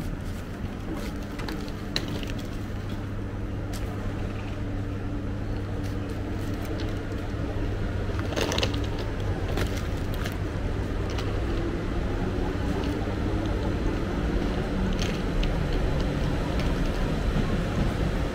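Steady low hum of a parked passenger train's carriages at a station platform, with scattered short knocks and clicks.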